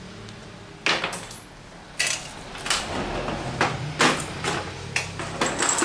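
Irregular sharp knocks and clatters, about eight of them spread over several seconds, from wooden crate parts and tools being handled.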